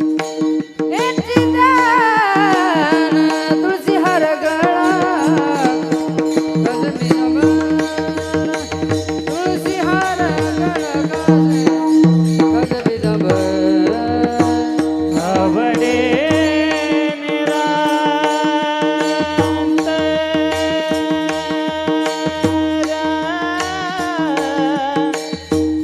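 Marathi devotional song: a man singing an ornamented, sliding melody over a steady held drone, with hand-drum strokes keeping the rhythm.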